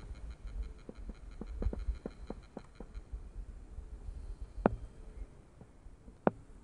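Outdoor wind rumbling on the microphone, with a run of light clicks over the first three seconds and two sharper clicks later on.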